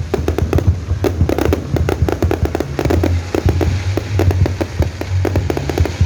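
Fireworks display going off in a dense, rapid barrage: many sharp bangs and crackles each second over a continuous low rumble of booms.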